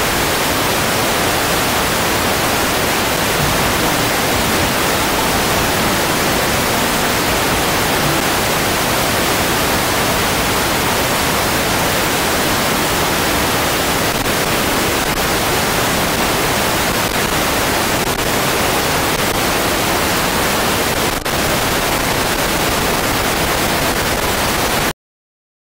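Steady, loud hiss of static-like noise that cuts off abruptly near the end.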